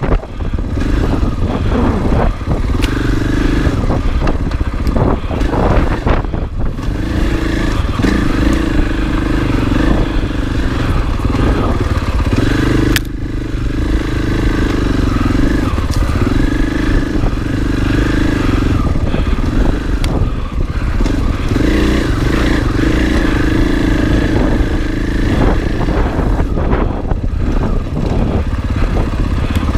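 Husqvarna FE 501 dirt bike's single-cylinder four-stroke engine running on the trail, its note rising and falling again and again as the throttle is worked, with one brief sharp knock about 13 seconds in.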